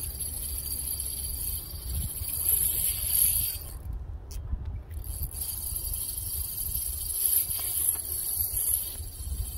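Spinning reel being cranked as a hooked fish is reeled in, with wind rumbling on the microphone.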